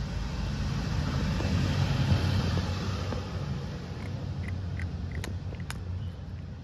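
A vehicle passing on the street: a low rumble that swells to its loudest about two seconds in, then fades. Over it, a cat crunching dry kibble, with sharp chewing clicks in the second half.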